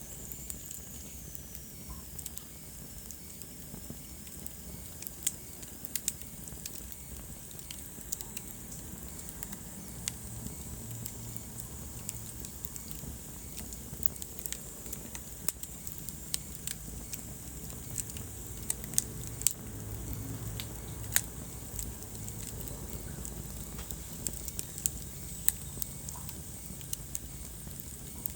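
Wood fire burning in a fireplace: irregular sharp crackles and pops over a steady low rumble of flames, with a faint high whistle sliding down in pitch in the first couple of seconds.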